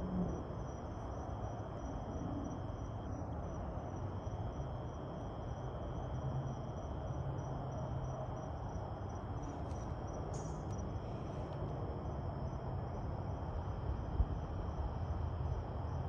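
Crickets trilling steadily in two continuous high-pitched trills, one of them pulsing, over a low background rumble, with a single brief thump near the end.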